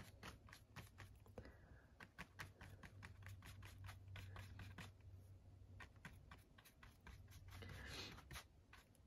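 Faint scratching of a flat paintbrush laying acrylic paint onto cardboard in quick, repeated short strokes, about three or four a second, with one longer stroke near the end. A low steady hum runs underneath.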